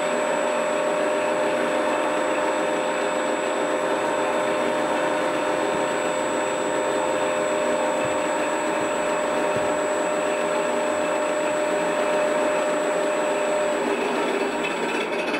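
Radio-controlled Yak-12R model plane running on the bench: the propeller spins with a steady whir, mixed with the simulated engine drone from the model's sound module. One steady tone drops out near the end.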